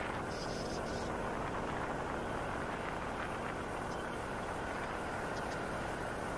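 TGB Blade 1000 ATV under way, a steady rush of engine and wind noise with no sharp events.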